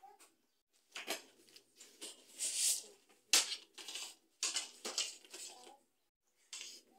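Plastic panels and connectors of a modular cube storage cabinet rattling, knocking and scraping as the cabinet is gripped and shifted, in a run of irregular noises that are loudest a little past halfway.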